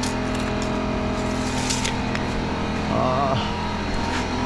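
Air compressor running steadily, a constant mechanical hum with a brief warbling tone about three seconds in.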